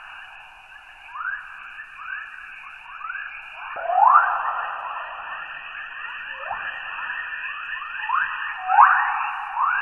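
Earth's 'chorus' plasma waves from the Van Allen radiation belts, picked up as radio signals by NASA's Van Allen Probes and played as sound. Overlapping rising chirps over a steady hiss, with a louder chirp about four seconds in and another near nine seconds.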